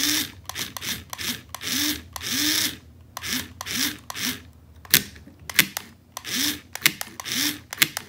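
Small toy-car DC motors and a plastic gearbox whirring in a rapid series of short bursts, each spinning up and winding down, as the remote-control drive and steering are switched on and off. A few sharp clicks come in between.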